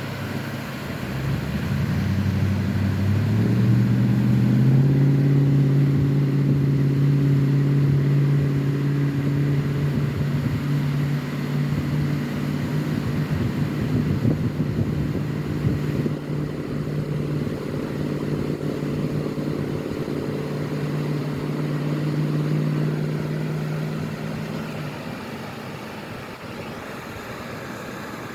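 A motor vehicle engine running; it rises in pitch over the first few seconds, holds a steady note for about twenty seconds, then fades away near the end.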